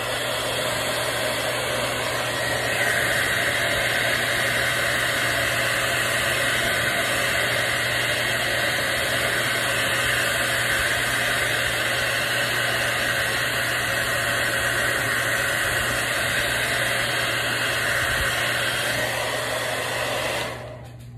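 Handheld hair dryer blowing on its cool setting, a steady rush of air, used to dry freshly applied paint; it is switched off shortly before the end.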